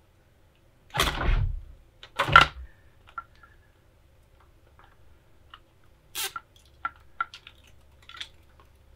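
Black plastic battery tray of a motorcycle being handled and fitted back over the battery: two heavier knocks and shuffles about one and two seconds in, then scattered light plastic clicks and taps.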